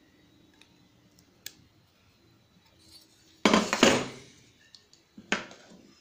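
A few faint clicks of a small screwdriver working in a metal tube, then metal hand tools set down on a wooden tabletop: a loud clattering burst of several knocks a little past halfway, and one more sharp knock near the end.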